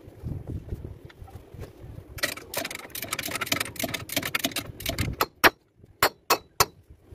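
Metal tools and chain clinking and rattling against the truck's gearbox during clutch repair work, with one loud clank about five seconds in and three sharp single clicks after it.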